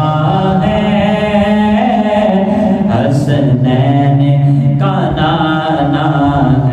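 A male voice singing a naat (Urdu devotional poem) unaccompanied, drawing out long held, wavering notes.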